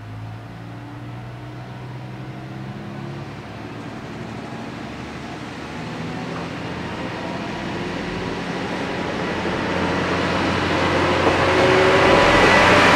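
Kanto Railway Joso Line diesel railcar pulling away from the station and accelerating. Its engine note climbs in pitch twice and grows steadily louder, and near the end the train passes close by with rising wheel-on-rail noise.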